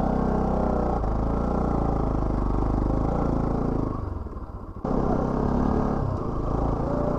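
Motorcycle engine running under load on a steep uphill dirt road, its pitch rising and falling with the throttle. About four seconds in it eases off briefly, then picks up again suddenly.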